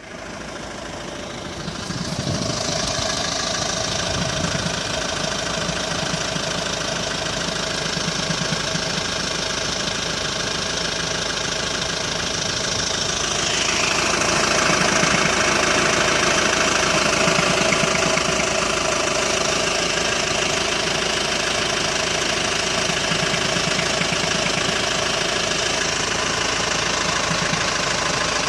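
Hyundai ix35 diesel engine idling cold during warm-up, with an irregular, non-periodic knock that the owner says goes away once the engine is warm and that the dealer has not traced. The running grows a little louder about halfway through.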